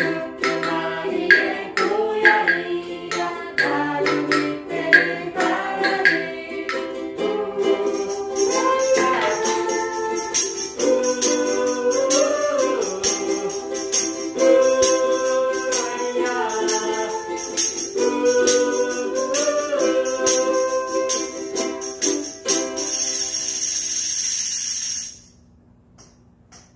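Group singing of a Korean children's song with a ukulele ensemble. A handheld wooden block is tapped in a steady beat for the first several seconds, then a tambourine jingles continuously from about a third of the way in. All of it stops about a second before the end.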